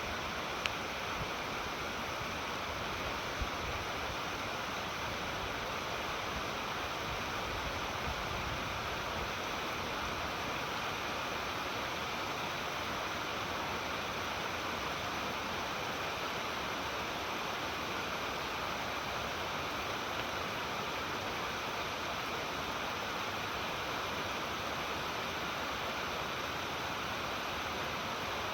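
Stepped waterfall running steadily, water cascading over rock ledges in an even rushing hiss.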